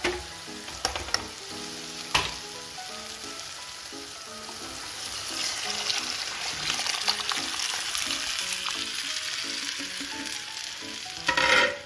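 Hot oil and masala sizzling in a pan as boiled kidney beans and their cooking water are poured in; the sizzle grows louder about five seconds in. A few sharp knocks come in the first couple of seconds and a short louder sound near the end, over background music.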